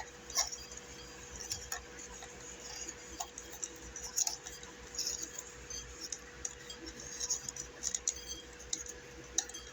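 Scattered light clicks and glassy clinks as a light bulb is fitted into a ceiling fan's light fixture, over a faint steady hum.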